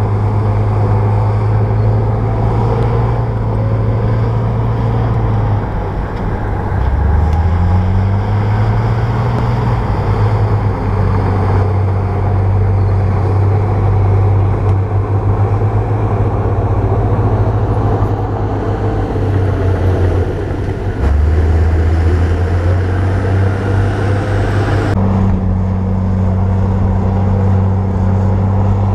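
Bulldozer's diesel engine running hard, its low note dipping and climbing back up as the revs change a few times. About 25 seconds in the sound changes abruptly, with a higher engine note coming in.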